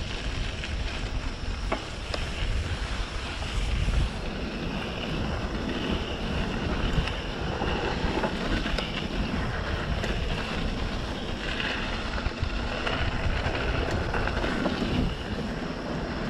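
Wind buffeting the microphone of a mountain bike rider on a dirt trail, with a steady low rumble and a few light clicks and rattles from the bike rolling over the ground.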